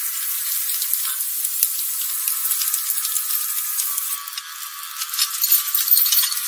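Drama soundtrack with everything below about 1 kHz cut away, so the dialogue and score come through only as a thin, harsh, crackling rattle. It dips briefly past the middle and picks up again near the end.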